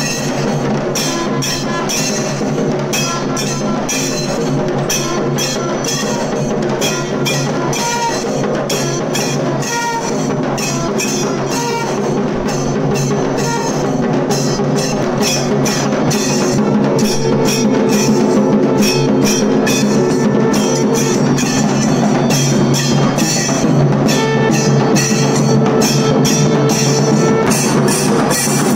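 Long straight brass horns blown in held notes over fast, continuous drumming: temple procession music. The sound grows a little louder about halfway through. Near the end a conch shell sounds one long steady note.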